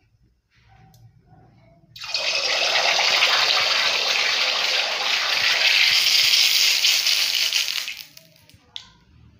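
Hot cooking oil in an aluminium wok sizzling as toothpaste is squeezed into it: a loud hiss that starts suddenly about two seconds in, holds for around six seconds and dies away near the end.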